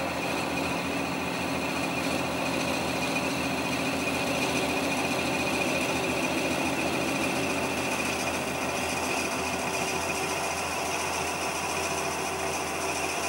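Wood lathe running steadily while a drill bit held in the tailstock chuck bores into the end of the spinning wooden blank.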